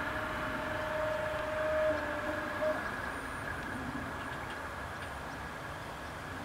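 Level-crossing barrier booms rising, their drive motor giving a steady hum that cuts off with a short knock nearly three seconds in, over a steady rushing background.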